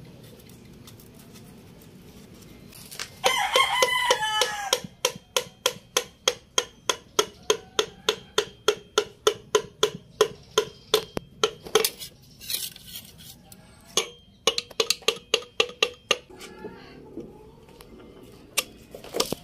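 A piston is tapped down into a Suzuki K6A three-cylinder block through a band-type piston ring compressor: a long run of about three sharp, ringing metallic taps a second. A rooster crows loudly about three seconds in.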